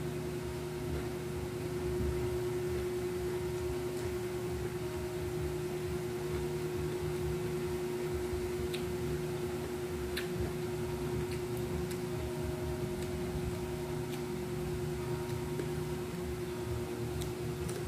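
A steady hum with one constant tone over a low rumble, and a few faint soft clicks from eating crispy crab and rice by hand.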